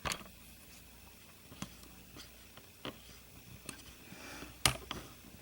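Scattered light clicks and taps of a hand Torx screwdriver and screws against a sewing machine's plastic cover as the screws are driven back in, about six sharp clicks, the loudest near the end.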